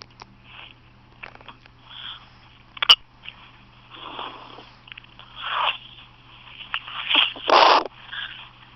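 A person hiccuping several times: a sharp hic about three seconds in, then a run of short, breathy hics and gasps, the loudest near the end.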